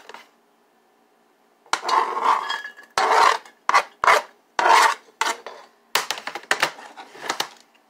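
Kitchen knife scraping diced onion off a cutting board into a slow cooker: a series of rasping strokes starting a little under two seconds in, then a few quick sharp taps near the end.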